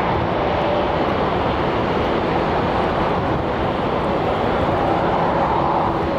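Boeing 787-9 Dreamliner's GE turbofan engines running at taxi power: a steady jet rush with a few held tones, even throughout.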